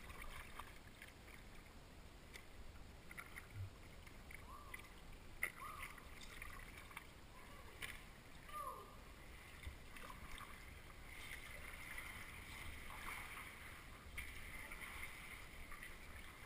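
Faint kayak paddle strokes and water lapping against the hull, with a few short clicks and some brief falling chirps in the middle.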